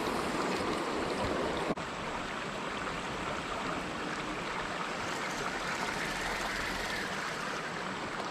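Creek water running steadily, an even wash of noise, with a momentary gap in the sound just under two seconds in.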